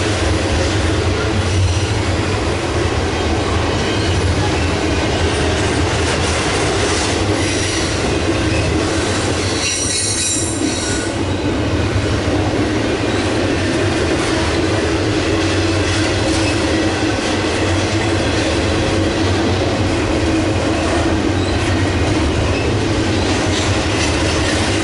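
Norfolk Southern double-stack intermodal train's well cars rolling by on a bridge overhead: a steady, loud rumble of wheels on rail. A brief high-pitched squeal comes about ten seconds in.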